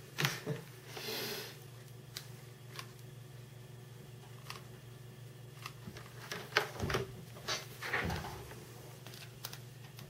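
Hands handling and positioning model-plane parts: scattered light taps, clicks and rustles, with a brief scraping hiss about a second in and a cluster of knocks about two thirds of the way through, over a steady low hum.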